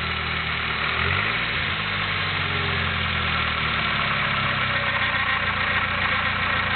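Nissan SR20DET turbo four-cylinder engine idling with a grinding noise, which the owner traces to the VTC (variable valve timing) sprocket at the front of the cylinder head and which occurs only at idle. The engine note dips briefly about a second in.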